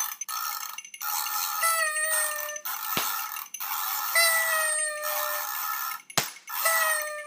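New Year's party noisemakers: paper party horns blowing buzzy tones about a second long over a continuous clatter of rattles, with two sharp clicks about three and six seconds in.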